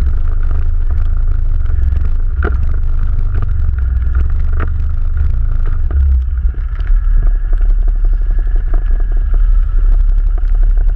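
ATV engine running as the quad drives along, a loud steady low rumble with frequent knocks and rattles. The engine note drops about seven seconds in.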